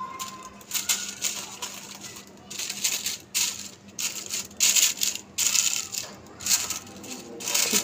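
Butter paper crinkling and rustling in irregular bursts as it is pressed and smoothed into a pan by hand.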